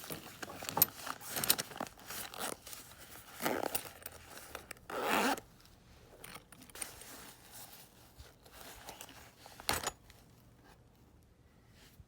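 A zipper being pulled in several short rasps, with rustling and scraping handling noises, the longest rasp about five seconds in. A single sharp click comes near the end.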